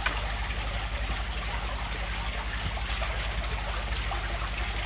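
Aquarium filter water trickling steadily over a low hum, with a couple of faint taps around the middle.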